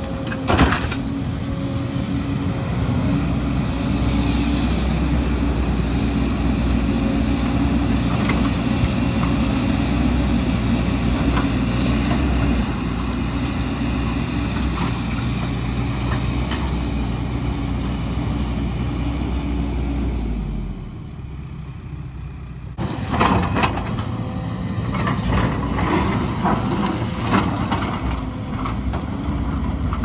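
Diesel engine of a JCB tracked excavator running steadily under load as it digs. About two-thirds through the sound drops away for a couple of seconds, then comes back with a run of clatter and scraping from the bucket in rocky soil.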